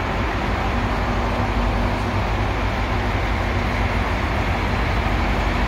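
Steady machinery noise: a continuous low rumble under an even hiss, with a faint steady hum, and no distinct knocks or starts.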